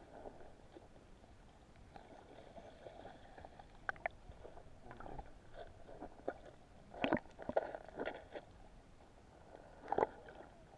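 Muffled underwater sound heard through an action camera's sealed waterproof case: a dull murmur of river water with scattered knocks and clicks, the loudest about seven and ten seconds in.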